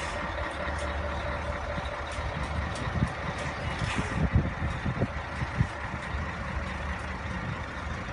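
Heavy truck engine running steadily, with a few short low thumps about three to five and a half seconds in.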